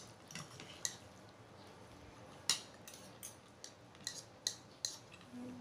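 Fork and spoon clinking and scraping against a plate: a scatter of light clicks, most of them in the second half.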